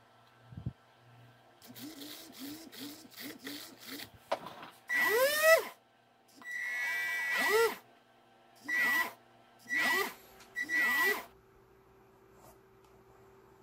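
Small electric drive motor of an RC boat run in short bursts from a phone app. First come about three seconds of quick blips, then five longer runs. Each run is a whine that rises and falls in pitch, with a high steady electronic tone alongside.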